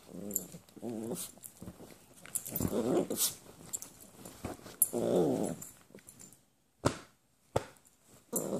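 Small dogs growling as they play-wrestle, in several short bouts, followed by a few sharp clicks near the end.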